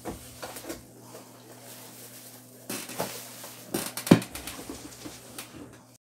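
Plastic packaging rustling and a cardboard box being handled as fan parts are taken out, with scattered clicks and one sharp knock about four seconds in.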